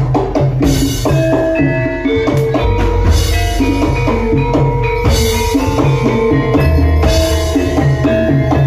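Kuda kepang dance music: a Javanese gamelan-style ensemble of hand drums and struck metal-keyed instruments playing a steady, repeating rhythmic melody.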